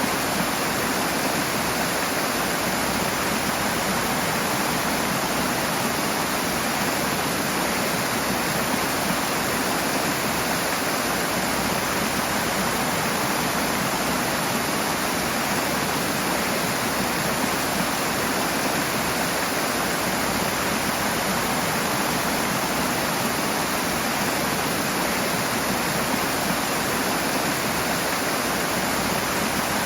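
Rushing water: a fast stream or small waterfall pouring steadily, a constant full rush with no breaks.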